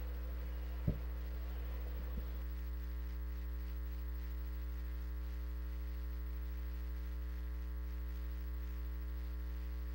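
Steady electrical mains hum with a buzzy stack of even overtones, and a faint click about a second in.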